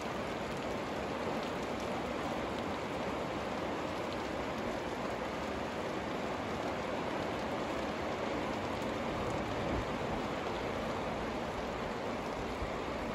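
Rain falling steadily and fairly hard, an even unbroken hiss of the downpour.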